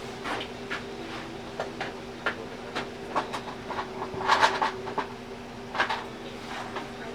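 Scattered light clicks and knocks of hands handling wires and parts during compressor switch wiring, loudest about four and a half seconds in, over a steady low hum. The compressor motor is not running.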